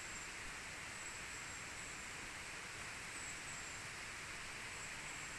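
Steady rush of flowing water, an even hiss with no change in level. Faint, short, high-pitched chirps come and go a few times over it.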